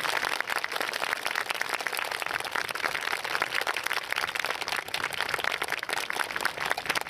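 Audience applauding: a dense, steady patter of many hands clapping after the dance music ends.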